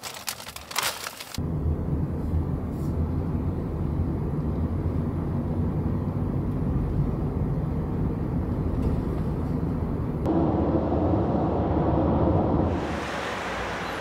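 A paper takeaway bag crinkling briefly, then the steady rumble of road and engine noise inside a moving car's cabin, growing louder about ten seconds in. Near the end it gives way to a quieter, even hiss.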